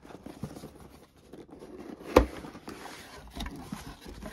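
Cardboard box being opened by hand: the tuck-in lid is pulled free and lifted, with soft rustling and scraping of cardboard. One sharp knock comes about two seconds in.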